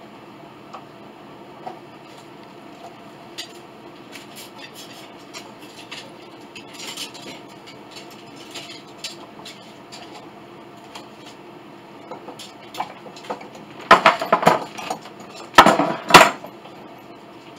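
Metal clamps and tools clattering and clanking against each other and the bench as they are handled, in two loud bursts near the end, after light scattered taps and clicks.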